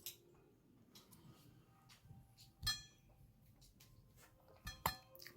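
A few sharp clicks and knocks of small hard objects against each other, the loudest a ringing clink about two and a half seconds in, and two more close together near the end.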